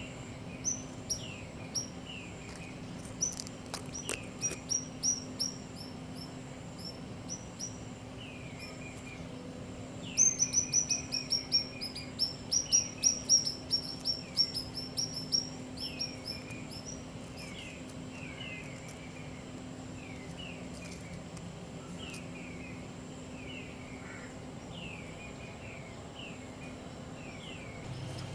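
Birds chirping: short, falling high notes, with a fast, louder run of rapid chirps about ten seconds in, and lower, softer calls scattered throughout.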